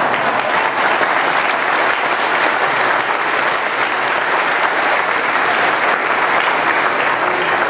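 A congregation applauding steadily, many hands clapping together.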